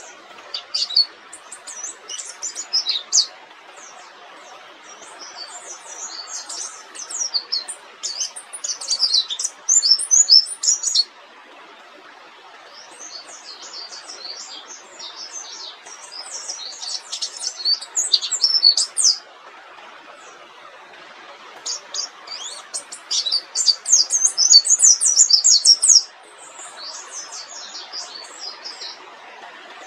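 A pleci dakun white-eye singing in long, rapid 'ngerol' runs of high twittering notes. The song comes in phrases of several seconds separated by short pauses, over a steady background hiss.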